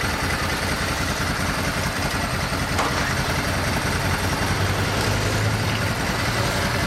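Motorcycle engines idling steadily: the Ducati 999 superbike's L-twin, with a Moto Guzzi V-twin alongside. The low tone swells slightly about five seconds in.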